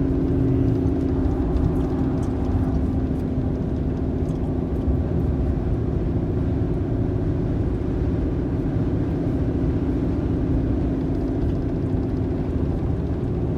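Car driving downhill, with a steady engine and road hum heard from inside the cabin.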